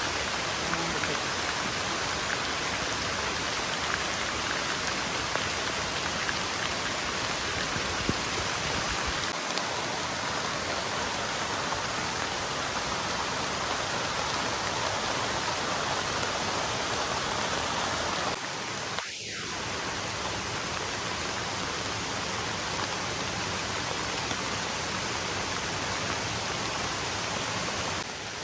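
Heavy rain falling steadily, a constant even hiss with no single sounds standing out.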